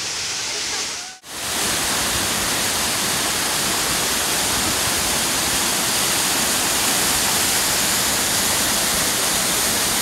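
Waterfall in heavy monsoon flow, water pouring over rock: a steady, dense rush that drops out for an instant about a second in, then resumes slightly louder.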